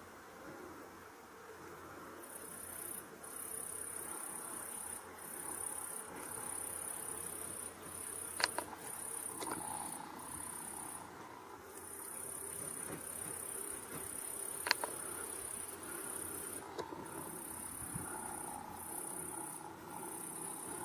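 Insects chirring in a meadow: a high-pitched, buzzing trill in runs of about a second with short breaks, starting a couple of seconds in. Two sharp clicks stand out, about a third of the way through and again about two thirds through.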